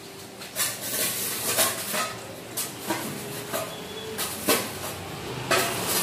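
Irregular metallic clanks and knocks at a borewell drilling rig, about a dozen with no steady rhythm. A low hum comes in near the end.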